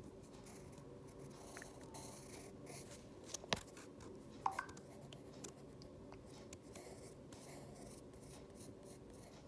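Pencil strokes scratching faintly on paper as a drawing's outline is sketched, over low room hum, with a single sharp click about three and a half seconds in.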